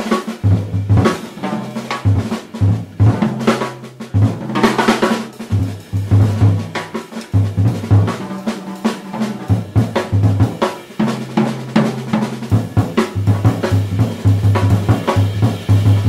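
Jazz drum kit played in a fast, dense solo, with low pitched notes sounding underneath.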